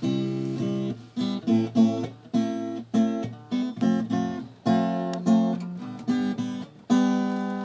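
Acoustic guitar strummed in a steady chord pattern, with a loud chord struck near the end and left ringing.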